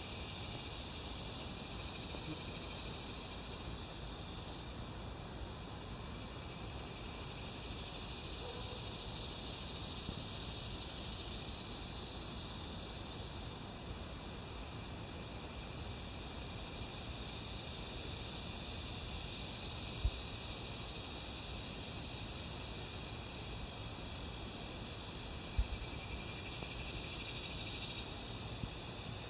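Outdoor insect chorus: a steady high-pitched buzzing drone that slowly swells and eases, with two soft low thumps in the second half, about five seconds apart.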